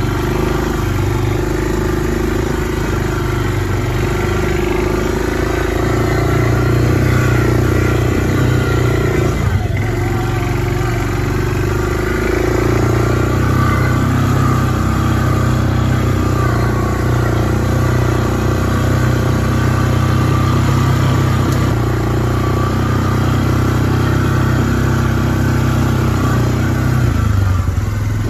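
ATV (four-wheeler) engine running under way on a rough dirt trail. The engine note shifts up and down with the throttle several times.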